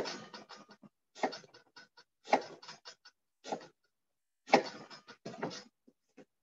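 Kitchen knife slicing an onion on a plastic cutting board: bursts of quick cuts about once a second, each opening with a sharp knock of the blade on the board followed by several lighter chops.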